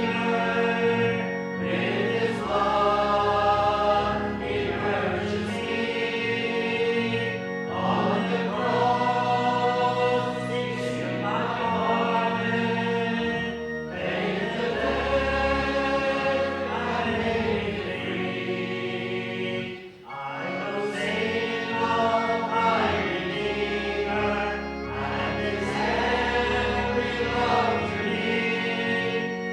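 Congregation singing a hymn, holding long notes phrase by phrase, with a brief pause between phrases about two-thirds of the way through.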